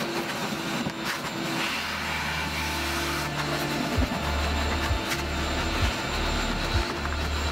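Vacuum cleaner running steadily, its hose and crevice nozzle sucking dirt and debris out of old car floor carpet.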